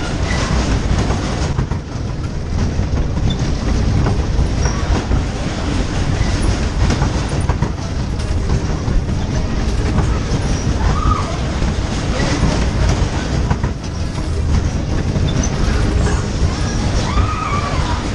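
Funfair ride cars running at speed round their track, with a steady loud rumble and clatter of wheels on the rails.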